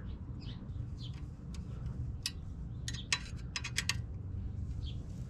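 Light metallic clicks and ticks as a small bolt is worked by hand through paint-clogged threads in an e-bike's front rack mount, a handful of them, most between about two and four seconds in, over a steady low hum.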